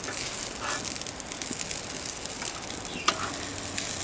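Trout skins frying, a steady sizzle with small crackling pops and one sharper pop about three seconds in.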